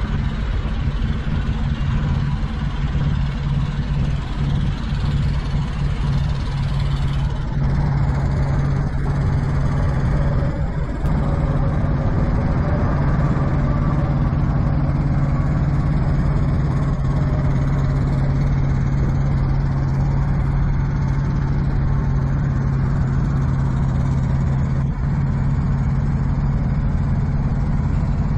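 Kenworth semi truck's diesel engine idling: a steady low drone that holds an even pitch throughout.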